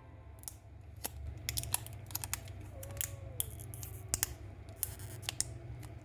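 Irregular small clicks and crackles of fingers handling a new smartphone and picking at its clear plastic protective film, over a steady low hum.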